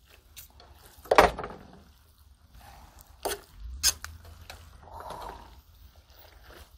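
Creamy linguine carbonara being lifted and stirred in a large iron pan with a plastic pasta fork: wet squelches and slaps of sauce-coated noodles, with a sharp splat about a second in and a couple of clicks of the fork against the pan.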